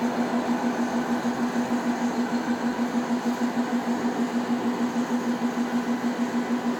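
Diesel engine of a standing track-maintenance train idling: a steady low hum that pulses evenly several times a second.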